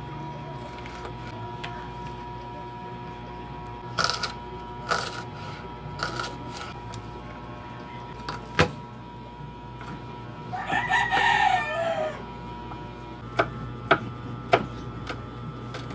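A rooster crows once, a little past the middle, over a steady faint hum. Scattered sharp knocks of a knife and cutting board on a table come before and after the crow.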